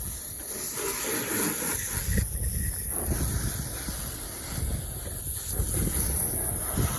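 Water spray hissing against a car in spells, with wind rumbling on the microphone.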